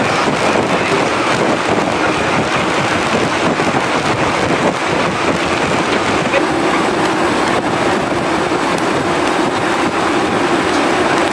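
Steady rushing noise of wind on the microphone and a ship moving through the sea, without breaks.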